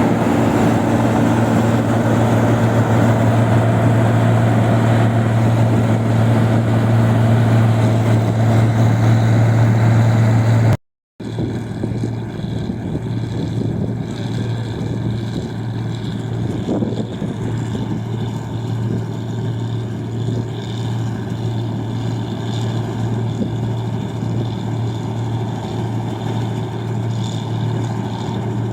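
Engine of a rice machine running steadily, with a strong low hum. The sound drops out for a moment about eleven seconds in, then carries on a little quieter.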